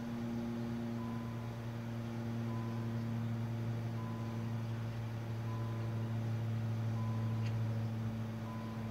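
A steady low mechanical hum, with a faint short high beep repeating about every one and a half seconds.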